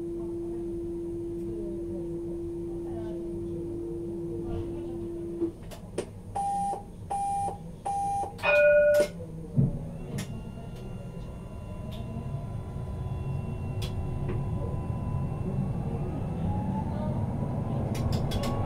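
Tram standing at a stop: a steady electronic tone for about five seconds, then three short beeps and a loud falling three-note chime, the usual door-closing warning before departure. A thump follows, then the tram's electric traction motors set off with a whine rising in pitch as it speeds up, over growing wheel and track rumble.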